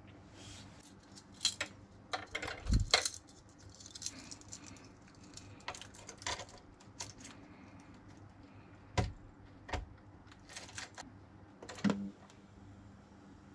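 A metal keychain and split ring jangling and clicking in the hands as it is fitted onto a radio's carry handle, with scattered sharp handling clicks on the radio.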